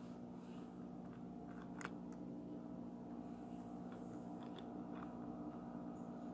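Quiet room tone: a steady low hum with a few faint clicks and rustles from the phone being handled, the sharpest click just before two seconds in.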